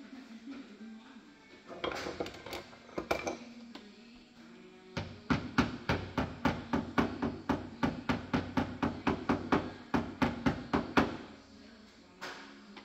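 Metal being struck during body repair on a car's door pillar: a few sharp metallic knocks, then an even run of about three knocks a second for some six seconds.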